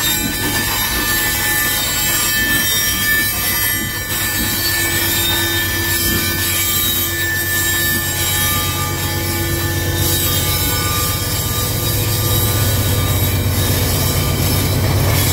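Steel wheels of loaded freight hopper wagons rolling slowly over the rail, with high squealing and grinding of wheel on rail. A deep hum grows louder over the last few seconds.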